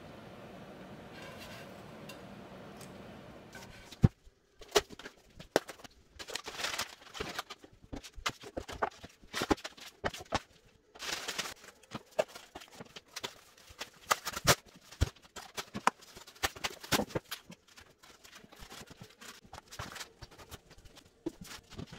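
Flat-pack shelving being assembled: a fast, irregular run of knocks, clacks and scrapes as particleboard panels and fittings are handled and fitted together. Before that comes a few seconds of faint steady room tone.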